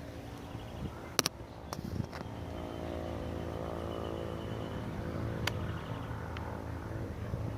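A motor vehicle's engine runs steadily, with its drone rising slightly partway through. About a second in there is one sharp snap, followed by a few fainter clicks.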